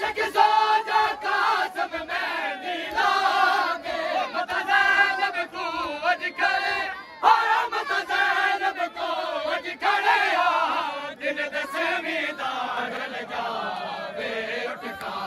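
Crowd of men chanting loudly together in rhythmic phrases, with sharp hand strikes among the voices.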